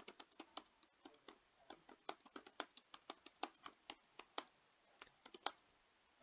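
Typing on a computer keyboard: a quick run of separate key clicks, about five a second, that stops shortly before the end.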